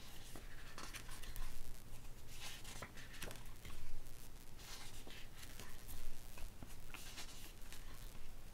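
Pages of an album photobook being turned by hand, the paper rustling and sliding in a series of separate swishes.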